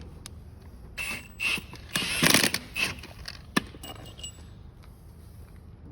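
Anchor bolts and installation tools being picked up and handled: scattered metallic clinks and scrapes, with a louder clatter about two seconds in and a sharp click a little later.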